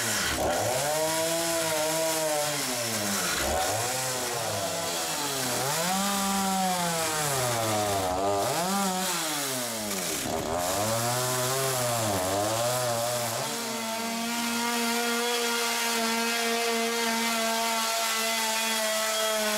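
Gasoline chainsaw cutting into a log wall to trim a window opening. For most of the stretch the engine note swings up and down over and over, as the saw works into the wood and eases off. About two-thirds of the way through it settles to a steady high pitch.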